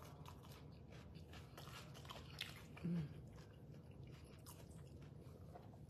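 A person chewing a mouthful of sandwich close to the microphone: faint wet mouth clicks and smacks, with a short low hum about three seconds in.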